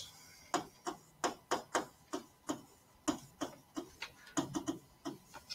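Digital stylus tapping on its writing surface as words are handwritten: a run of short, sharp, irregular clicks, about three a second.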